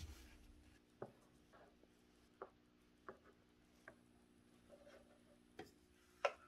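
Near silence over a faint room hum, broken by about six light, sharp clicks and taps roughly a second apart as small plastic jars are picked up and set down on a workbench. The last tap, near the end, is the loudest.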